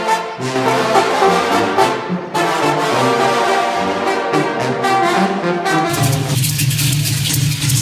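Banda brass band playing a tune on trumpets, trombones and sousaphone. About six seconds in, the music cuts off and is replaced by a steady low hum under a rustling hiss.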